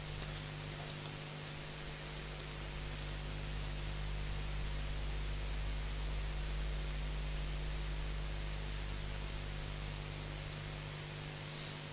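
Steady hiss with a low electrical hum underneath, the recording system's noise floor; no distinct sound stands out.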